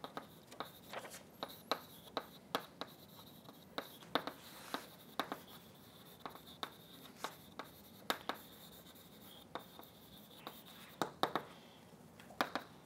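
Chalk writing on a blackboard: a long run of sharp, irregular taps and short scrapes as letters are written stroke by stroke.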